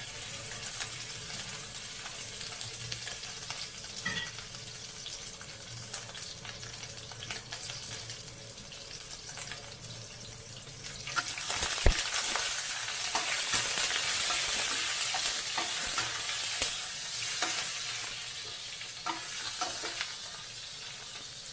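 Meat sizzling in hot oil in a wok, the sizzle growing louder about halfway through, with scattered clicks. Near the end a metal spatula stirs the meat against the wok.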